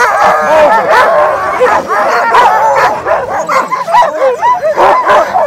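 A team of harnessed sled dogs barking and yelping all at once, many voices overlapping without a break.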